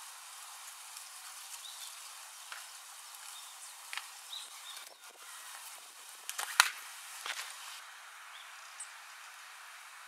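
A few footsteps on stone paving, scattered and irregular, over a steady outdoor hiss. The sharpest and loudest step comes about six and a half seconds in, as the walker passes close by.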